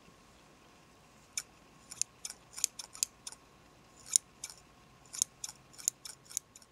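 Hairdressing scissors snipping hair close to the microphone: short, sharp snips in quick, irregular clusters, starting about a second and a half in.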